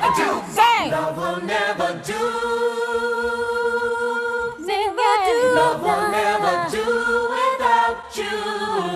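A cappella female vocals from a music track with the instruments removed: several layered voices singing harmonies. A quick swooping run comes in the first second, then a long held chord from about two to four and a half seconds in, then more short harmony phrases.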